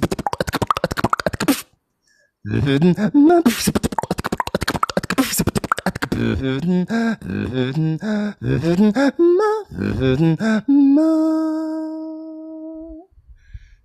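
Live beatboxing into a microphone over a video call: rapid mouth-percussion kicks, snares and clicks with a pitched vocal line. The sound cuts to silence for under a second about two seconds in. About eleven seconds in it ends on one held note that fades out.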